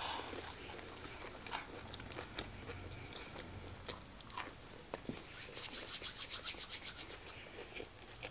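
Close-miked eating of a fried chicken nugget dipped in honey mustard: biting and chewing with wet mouth clicks and soft crunches. About two-thirds of the way in comes a quick run of soft, evenly spaced clicks.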